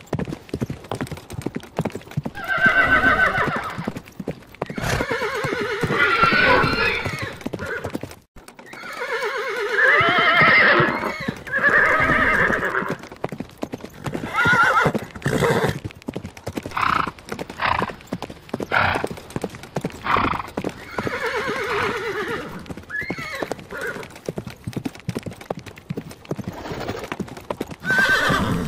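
Horses whinnying several times, each call lasting one to two seconds and wavering in pitch, over steady clopping of hooves. The sound drops out briefly about eight seconds in.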